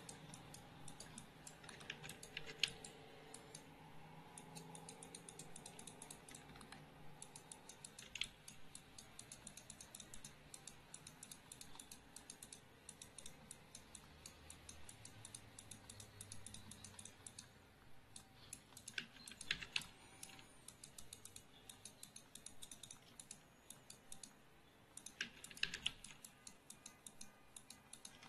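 Faint, quick clicking of a computer keyboard, light clicks going on steadily with a few louder bunches of keystrokes scattered through.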